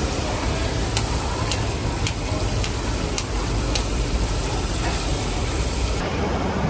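Busy market ambience: a steady low rumble with a run of light clicks or taps, about two a second, in the first few seconds. It changes abruptly near the end.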